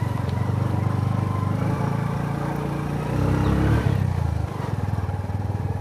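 Motor vehicle engine running steadily on the road, its note rising and getting louder for about a second around three seconds in, then dropping back.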